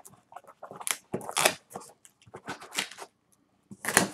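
A cardboard shipping box and its packing being opened by hand: irregular rustling, crinkling and tearing, loudest about a second and a half in and again near the end.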